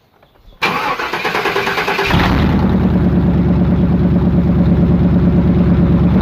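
1998 GMC truck engine cranked by the starter for about a second and a half, then catching and running loud and steady with the muffler removed.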